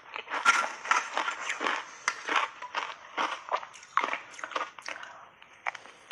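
Shaved ice with matcha powder and milk cream crunched between the teeth in big bites: a quick run of crisp crunches, about two or three a second, growing sparser and quieter near the end.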